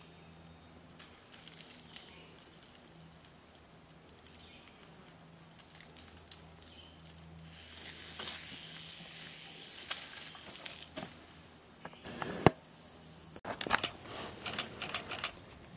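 Timber rattlesnake rattling: a steady, high, hiss-like buzz of about three seconds, starting about halfway through, a defensive rattle while a snake hook works it. Later comes a single sharp knock, then a run of small clicks and scuffs on rock.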